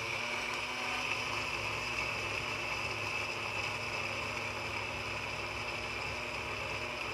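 Electric mixer grinder's motor running at full speed with a steady whine, dry-grinding roasted peanuts, coconut and poppy seeds in a small glass jar.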